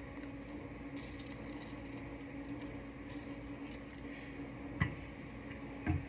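A lime being squeezed by hand into a bowl, with faint squishing. A steady low hum runs underneath, and two light knocks come near the end.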